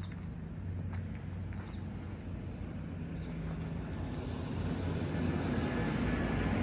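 A motor's low, steady hum, growing gradually louder.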